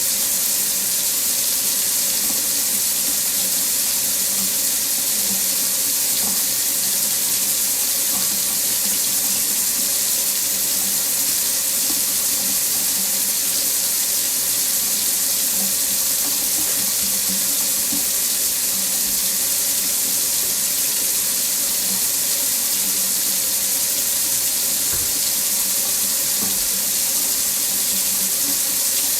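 Water tap running steadily into a sink, an even hiss of water with the most energy high up and no change throughout.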